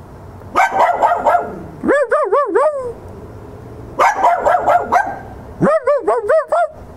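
A wire-haired terrier and a man barking back and forth. Twice, a harsh, rapid run of barks is answered by a run of four evenly spaced, clearer, higher barks.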